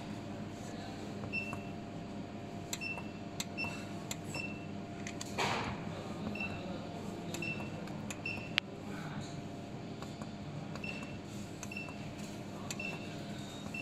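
Water chiller control panel beeping at each button press as its menus are paged through: about a dozen short, identical high beeps at uneven intervals, with faint key clicks. Underneath is a steady low hum, and there is a short burst of noise about halfway through.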